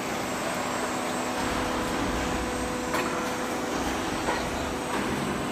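Steady mechanical hum of roll forming machinery running, with a faint steady tone and a couple of light clicks about three and four seconds in.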